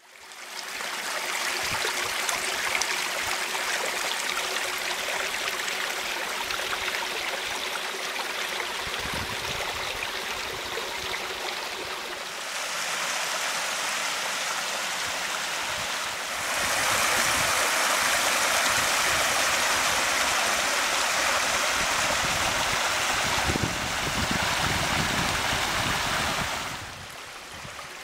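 Small mountain stream running over rocks, a steady rushing and gurgling of water. Its loudness and tone shift abruptly a few times.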